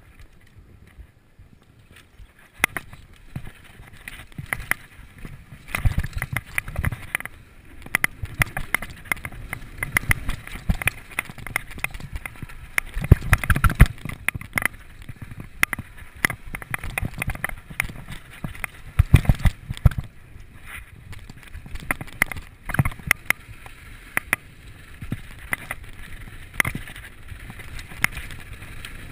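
Mountain bike rattling down a dry dirt trail: tyres on loose dirt and rocks, with the chain and frame clattering over bumps in an irregular string of knocks. It starts fairly quiet and the clatter picks up about two seconds in.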